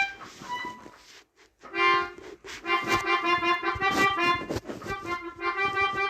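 Melodica being played: a few notes, a short pause about a second in, then a steady run of notes played as a melody.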